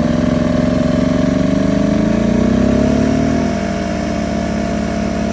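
Bosch 6-gallon air compressor running just after starting, powered by a Firman portable generator whose engine speeds up under the load about two to three seconds in and then holds a steady, higher pitch. The generator carries the compressor without overloading.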